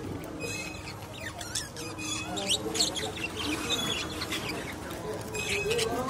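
A flock of caged budgerigars chirping and chattering: many short, high chirps and squeaks overlapping, getting busier from about two seconds in.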